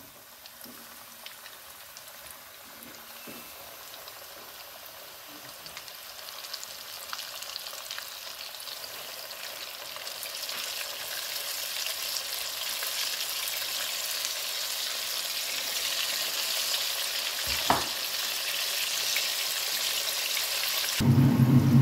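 Flour-coated chicken strips frying in a pan of hot oil: a dense crackling sizzle that grows steadily louder. A single sharp knock comes about three-quarters of the way through.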